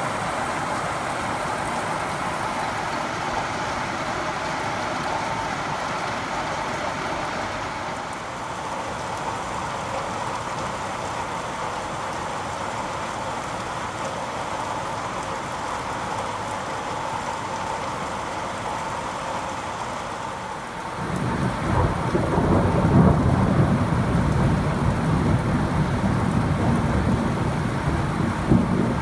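Heavy rain pouring steadily onto roofs and garden foliage. About two-thirds of the way through, a deep rumble of thunder sets in, louder than the rain, and rolls on to the end.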